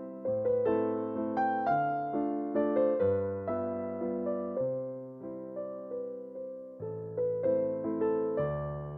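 Background music: a gentle electric piano melody with a soft bass line, notes struck and decaying.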